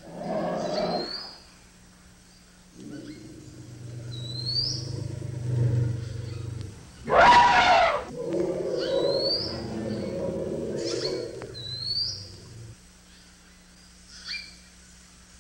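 An elephant calling: long low rumbling sounds and one short, loud trumpet-like blast about seven seconds in. A bird repeats a short rising chirp every couple of seconds throughout.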